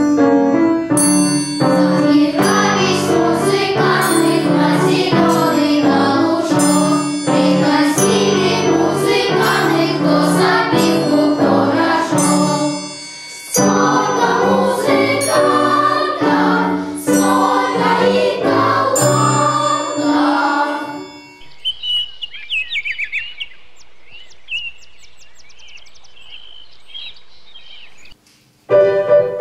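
Piano playing a lively piece with repeated chords in the bass, breaking off briefly about halfway. Around two-thirds of the way in the piano stops and high, wavering bird-like chirps sound over a quiet background, until the ensemble comes back in loudly near the end.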